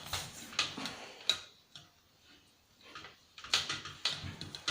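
Hand tool clicking and scraping against the parts of an old CRT TV/DVD combo as epoxied-in components are worked at, in two bursts of sharp clicks: one at the start and another about three and a half seconds in.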